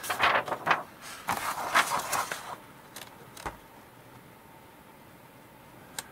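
Paper pages of an instruction booklet rustling and crinkling as they are turned over for about two and a half seconds, followed by a couple of light taps.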